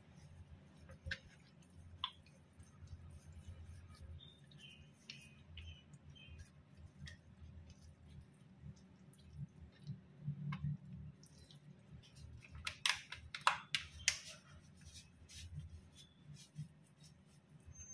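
Hands rubbing spice mix into the skin of a raw whole chicken and turning it over on a wooden cutting board: faint wet rubbing and handling noises over a low hum, with a cluster of soft knocks and slaps about two-thirds of the way through.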